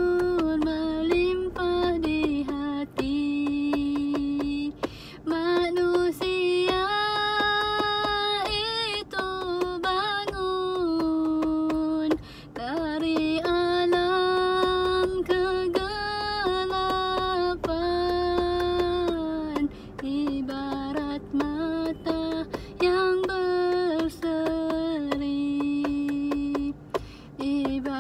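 A woman singing a slow melody alone, holding long notes that glide between pitches, with short breaths between phrases. Frequent sharp clicks sound under the voice.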